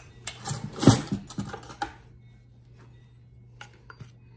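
Metal clicks and clinks from handling an opened tin can of condensed tomato soup: the cut-off can lid is set down on the countertop and a spoon goes into the can. A cluster of sharp clicks in the first two seconds, the loudest about a second in, then a few light ticks near the end.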